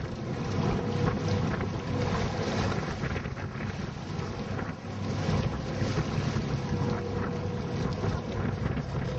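Wind buffeting the microphone over the steady low rumble of a sport-fishing charter boat's engine and the sea washing past the hull.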